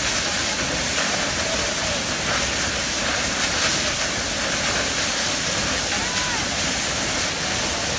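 Waterfall pouring onto rocks at close range: a steady, loud rush of falling water and spray.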